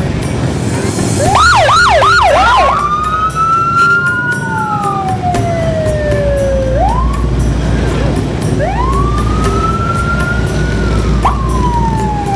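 Police motorcycle siren: four quick rising yelps about a second in, then a long wail that climbs and falls slowly, twice, over a low engine rumble.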